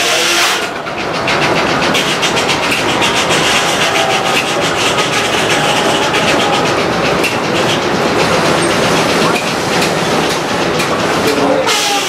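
Sawmill log carriage running along its track with a rapid, rattling clatter of clicks. A high hiss stops under a second in and comes back just before the end.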